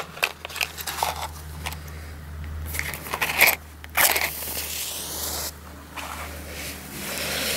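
Rustling, crackling and scraping as the camera lies in grass and is handled close by. Two louder, short scrapes come about three and a half and four seconds in, around the striking of a small flame to light a firework fuse.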